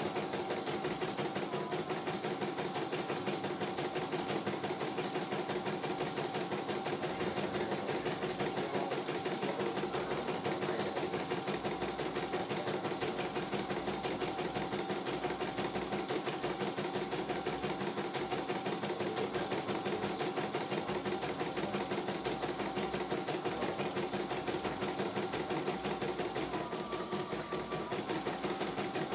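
CNY E900 computerized embroidery machine stitching a design: a fast, even needle clatter over a steady motor hum.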